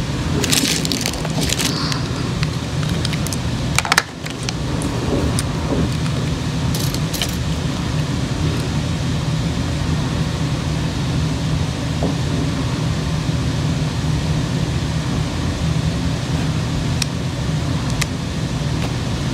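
A steady low background hum, with a few light clinks and rattles in the first two seconds and again near four seconds: glass gel polish bottles being handled in their plastic tray.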